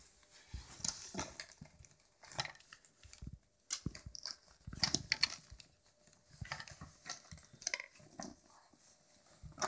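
Wrapping paper rustling and crinkling in irregular bursts as a West Highland white terrier noses into a wrapped present and tugs at it.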